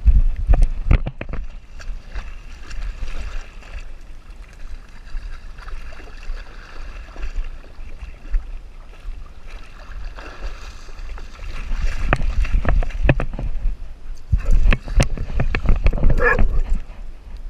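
Dog wading and swimming in a river, heard from a camera strapped to its back: water sloshing and gurgling around it, with rubbing and bumps against the camera. Near the end the dog shakes itself off, a loud burst of shaking that lasts a couple of seconds.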